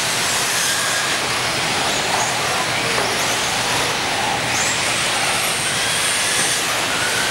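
Radio-control off-road cars racing on a dirt track: a steady, dense hiss of motors and tyres, with faint high whines that rise and fall as cars speed up and slow past.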